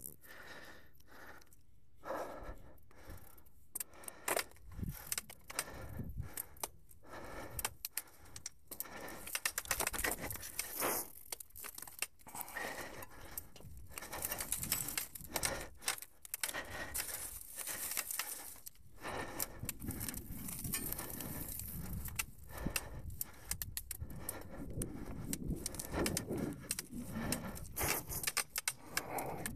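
Mountain bike riding over a bumpy dirt singletrack: a steady metallic rattle and clatter of the bike with irregular sharp knocks from the bumps, over the hiss of tyres rolling through dry leaves.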